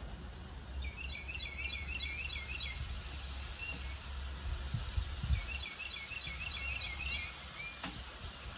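A songbird sings two quick phrases of rapidly repeated chirping notes, about a second in and again past the middle, over a low wind rumble on the microphone. A single sharp click comes near the end.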